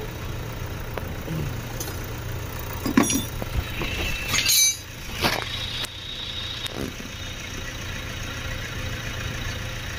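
A ring spanner clinks and scrapes on the metal of the timing-belt tensioner nut as it is undone, with a few sharp clinks between about three and seven seconds in. A steady low hum lies under it.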